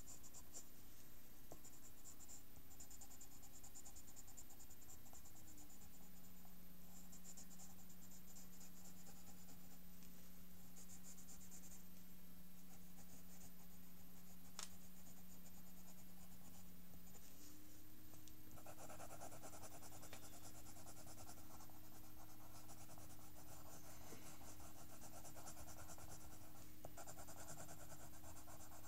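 Pencil scratching on paper in repeated shading strokes. The strokes grow louder and denser about two-thirds of the way through. A steady low hum runs underneath and shifts pitch twice.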